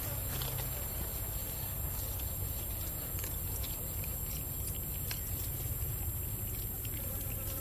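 Outdoor ambience: a steady low rumble and a constant high hiss, with scattered light clicks and rustles throughout.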